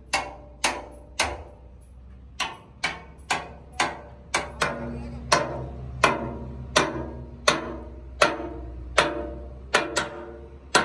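Hand hammer striking a steel chisel held against the weld seams of a steel excavator boom: sharp metal-on-metal blows at about two a second, slightly uneven, each ringing briefly.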